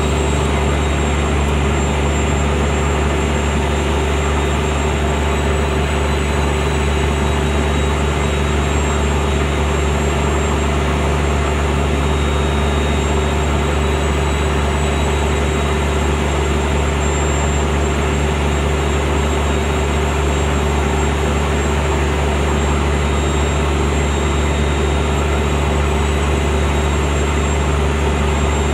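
Plastic film recycling milling machine running steadily, a constant loud motor drone with a thin high whine over it.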